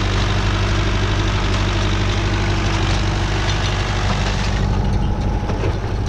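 Renault 651-2 tractor's diesel engine running steadily as it pulls a working New Holland 68 small square baler through hay, with mechanical clatter from the baler. The higher-pitched noise fades about four and a half seconds in.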